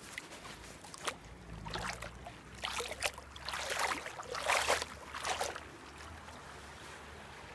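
Bare feet wading through shallow stream water, splashing with each step: about five separate splashes, the loudest in the middle.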